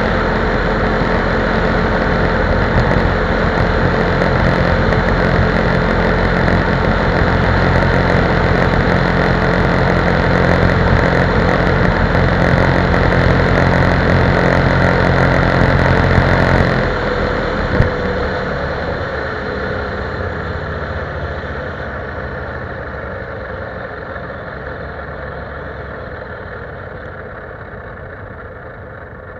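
ATV engine running steadily under throttle while riding along a gravel trail. About two thirds of the way through the throttle is let off: the engine note drops, and the sound fades as the machine slows.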